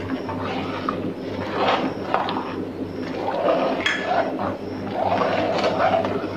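Metal spoon stirring thick milk in a metal cooking pot: sloshing liquid with the spoon scraping and clinking against the pot's sides and bottom, in uneven strokes with a few sharp clicks.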